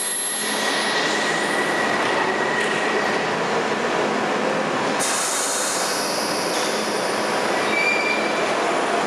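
London Underground 1973 stock tube train noise in an underground station: a loud, steady rumble with high squealing that starts suddenly. It carries on while the train at the platform closes its doors and begins to pull away near the end.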